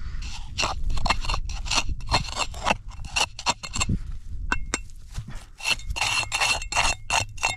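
Serrated metal digging tool scraping and cutting through a plug of dry soil among straw stubble, in quick repeated strokes of about two or three a second.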